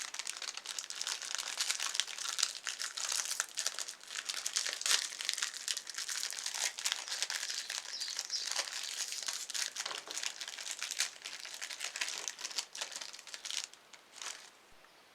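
Oreo cookies being crushed in a meat grinder: a dense, continuous crackling crunch that thins out about fourteen seconds in.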